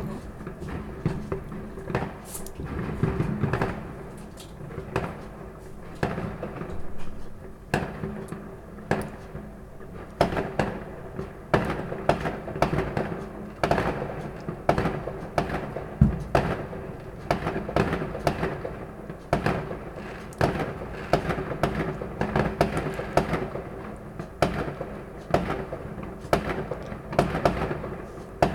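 Fireworks going off in the night sky: an irregular run of bangs and pops, one or two a second, over a steady low hum.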